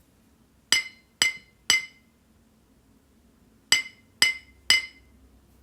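Six short, high, ringing clinks of a struck hard object, in two groups of three evenly spaced strikes about half a second apart, with a pause of about two seconds between the groups.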